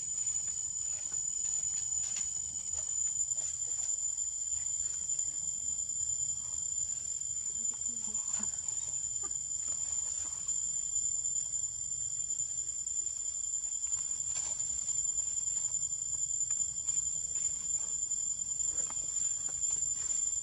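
Insect chorus in woodland: a steady, unbroken high-pitched drone, with scattered faint clicks.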